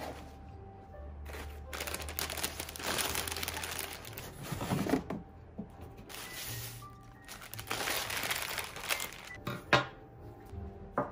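Cellophane and tissue paper crinkling as a wrapped flower bouquet is handled, in two long stretches of rustling with a couple of sharp knocks near the end, over background music.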